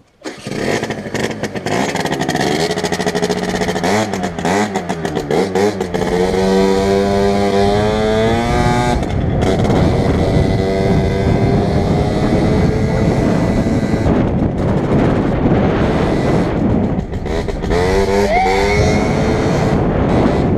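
Motorcycle engine pulling away and accelerating through the gears, its pitch climbing and then dropping at a shift about nine seconds in. It then runs more steadily at road speed, with another rise and fall in revs near the end.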